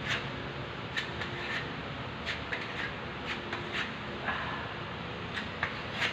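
Irregular light clicks and scrapes, about a dozen, from a marble cladding slab being pressed and adjusted by hand at its bottom edge. The sharpest click comes near the end.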